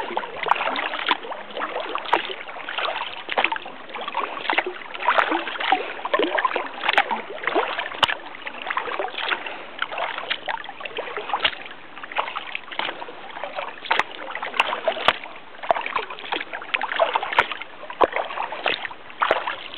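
Kayak paddle strokes: the blades splash into calm water again and again, with water rushing along the hull as the kayak is paddled briskly.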